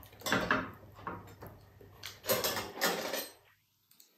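Eating and spoon noises at a dinner table: two short scraping, rustling sounds, the second longer, before the sound drops away almost entirely near the end.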